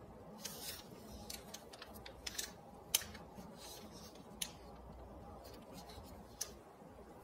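Square origami paper being folded and creased by hand: faint rustling and crinkling, with a sharp crackle about three seconds in and two smaller ones later.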